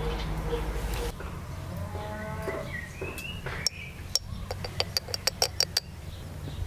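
An animal calls once in the background with a drawn-out call that rises in pitch, then a small metal sieve is tapped in a quick run of light clicks, about eight in a second, while cocoa is sifted through it onto the tiramisu cups.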